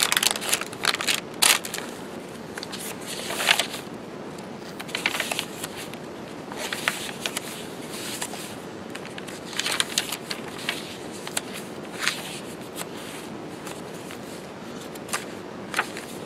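Paper and cardstock pages of a handmade journal being turned and handled: repeated short rustles and crisp paper flicks every second or two.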